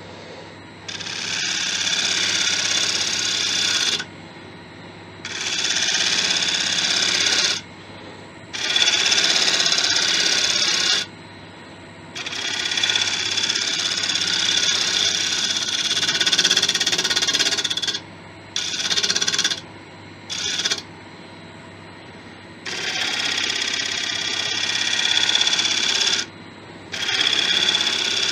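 Turning tool cutting a spinning wood blank on a Laguna 1836 wood lathe: about eight passes, each a hissing cut lasting from under a second to several seconds. The lathe's steady motor hum is heard between the passes.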